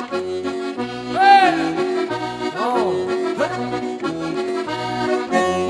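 Diatonic accordion playing a traditional tune, with held melody notes over a bass line that changes about twice a second.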